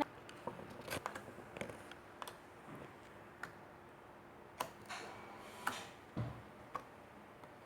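Clear homemade slime being handled, giving faint, irregular small clicks about once a second.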